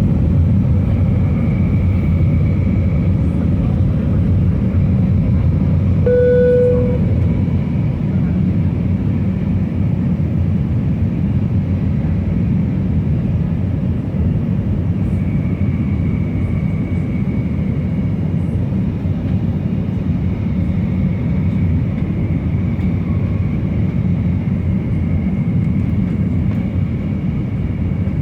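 Steady low drone inside the cabin of an Airbus A319 with CFM56 engines: engine and airflow noise with no change in level. About six seconds in, a single short clear tone sounds once, like a cabin chime.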